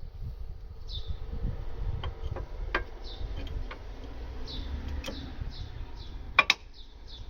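A few sharp metallic clicks and knocks as brake parts (the new pads and caliper) are handled, the loudest about six and a half seconds in, over faint high chirps repeating in the background.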